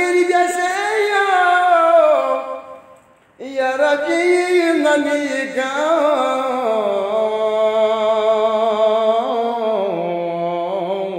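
Unaccompanied solo voice chanting a Balti qasida, a devotional poem, in two long drawn-out melodic phrases with a brief pause between them. The second phrase is held for several seconds and sinks lower in pitch at the end.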